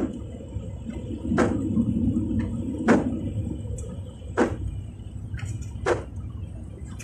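Car windshield wipers sweeping in the rain, one swish about every second and a half, over the low, steady rumble of the car driving.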